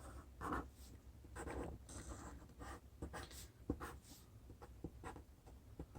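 Marker drawing on paper: a series of faint, short strokes of varying length.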